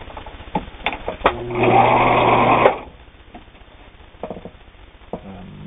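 Viking Husqvarna Optima 150 sewing machine running at speed in one short burst of about a second, with a steady hum, stitching through fabric. A few sharp clicks come before the run and a couple more after it stops.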